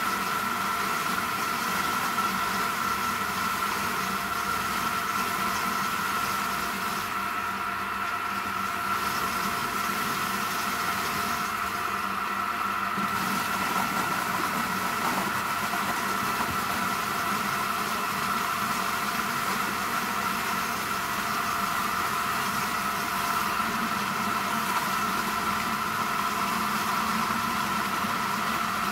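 Household electric vegetable chopper with a 400-watt motor running steadily as vegetables are fed into it: an even motor whine over a lower mechanical hum.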